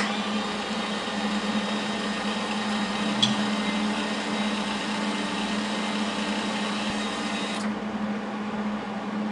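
Millermatic 175 MIG welder's wire-feed motor running steadily, driving ER5356 aluminum wire through a standard MIG gun rather than a spool gun. A steady hum with a hiss over it; the hiss cuts off about three-quarters of the way through while the hum carries on.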